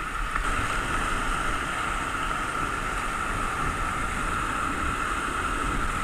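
Steady rush of a mountain river's whitewater rapids, heard from close by on the water in a kayak.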